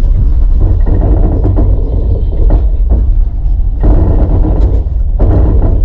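Steady low rumble of a moving vehicle, with the noise swelling briefly a few times.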